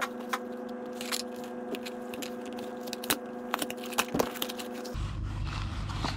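Small cardboard box being opened and handled: irregular crinkles, scrapes and clicks of card and paper flaps.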